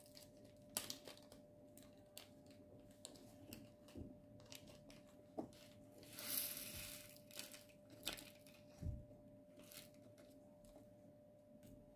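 Faint clicks and taps of small clear plastic storage containers and bags of diamond painting drills being handled, with a short rustling hiss about six seconds in. A faint steady hum runs underneath.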